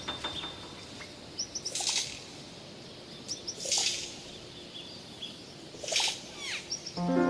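Birds calling: harsh, hissing calls about every two seconds, with short high chirps between them and a falling call near the end.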